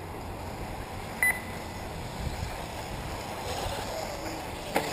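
A short, high electronic double beep about a second in, over steady outdoor background noise; a sharp knock near the end.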